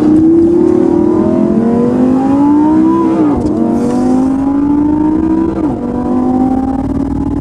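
Lamborghini Gallardo LP570-4 Superleggera's V10 under hard acceleration, heard from inside the cabin. The engine note climbs steadily, drops sharply with an upshift about three seconds in and again near six seconds, then climbs once more.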